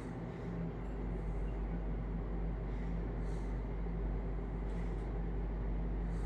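A steady low mechanical hum, with a few faint rustles of handling about halfway through.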